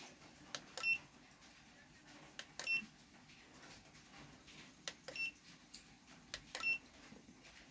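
Handheld smart digital multimeter beeping as its select button is pressed four times to cycle through its measuring modes. Each press is a soft click followed by a short, high beep, spaced a second and a half to two and a half seconds apart.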